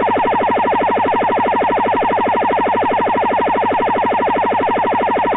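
Radio jamming signal: a loud, electronically generated buzz of many stacked tones, pulsing rapidly and evenly without a break.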